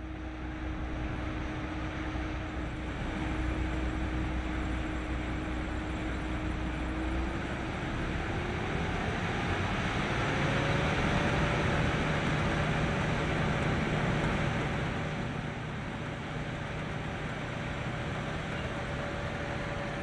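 John Deere combine harvester running while harvesting wheat: a steady machine drone with a whine that rises in pitch about eight to ten seconds in and then holds steady.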